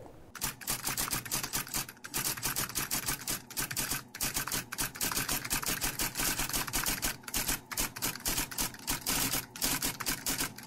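Typewriter keys striking in a quick, uneven run of clicks, a typing sound effect that starts about a third of a second in, with a few brief pauses.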